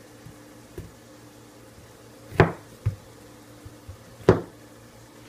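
Two sharp knocks of a metal kitchen utensil against the countertop while hot potatoes are cut, about two seconds apart, over a faint steady hum.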